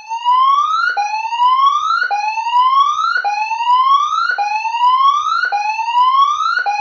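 Electronic siren sounding a whoop tone: rising sweeps repeat about once a second, each climbing in pitch and then dropping back sharply.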